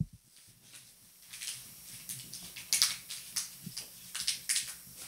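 Quiet handling noises of making a cup of coffee by hand. A series of short, faint scratches and rustles starts about a second in, over a steady low hum.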